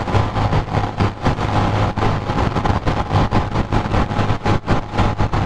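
Honda motorcycle engine running at a steady cruise, with a low hum under wind rushing over the action camera's microphone.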